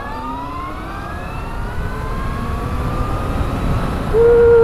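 Sur-Ron Storm Bee electric motorbike's brushless mid-drive motor whining under acceleration, its pitch rising steadily, over a low rumble of wind and road. About four seconds in, a louder whine tone sets in.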